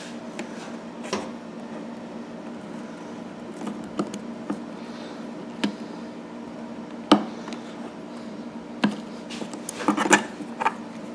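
Scattered sharp metal clicks and taps from a snap ring being worked into its groove on the lug of a Honda EU1000i generator's case top, the loudest about seven seconds in and a quick cluster around ten seconds, over a steady low hum.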